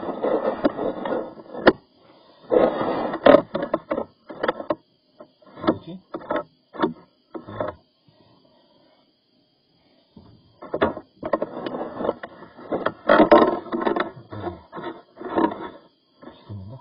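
Irregular knocking and scraping as a drain inspection camera's cable is fed along a sink drain pipe, with a pause of about two seconds midway.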